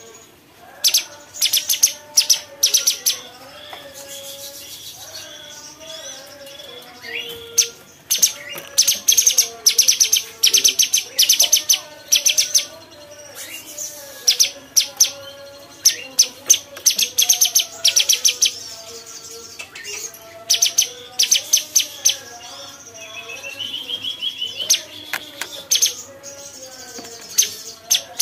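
Cucak cungkok singing: repeated bouts of very rapid, high-pitched chattering trills, with lower wavering whistled notes running underneath.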